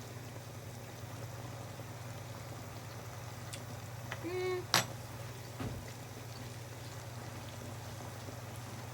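Kitchen hob background: a steady low hum with faint bubbling from pans cooking. About four seconds in comes a short hummed 'mm' while tasting, followed by two light clicks of a utensil.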